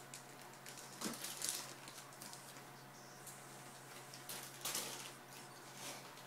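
Thin plastic bags crinkling and rustling in a few short bursts as they are handled and lifted out of a cardboard box.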